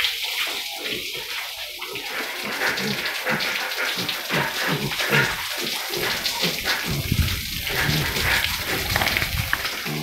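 Water spraying from a hose onto a wet concrete floor, a steady rushing hiss.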